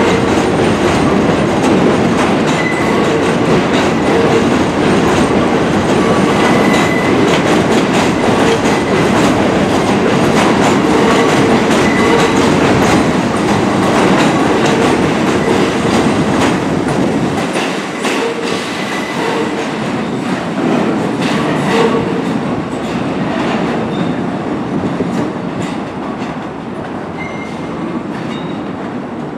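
Bombardier R62A subway train passing on the elevated steel structure, its wheels clattering over the crossover switches, with brief squeals now and then. The rumble fades from about two-thirds of the way through as the train moves away.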